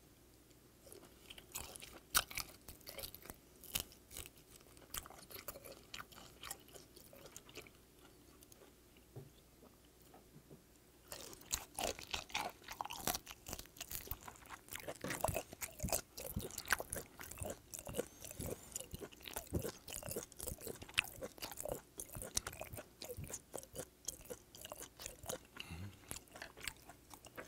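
Close-miked chewing of raw whiteleg shrimp, a crunchy bite. Scattered chews during the first several seconds, then a short lull, then steady dense chewing from about eleven seconds in.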